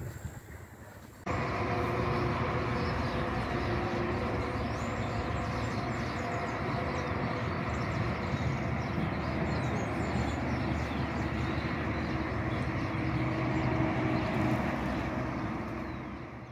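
Heavy trucks crossing a road bridge make a steady, loud traffic drone that starts suddenly about a second in. It fades out at the very end, with faint high chirps over it.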